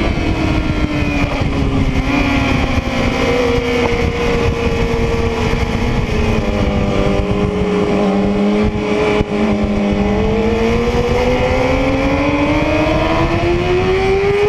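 Yamaha YZF-R6's inline-four engine heard from onboard at racing speed over a rush of wind noise. The engine's pitch falls slowly through the first half as the bike slows and leans through a corner, then climbs steadily as it accelerates out.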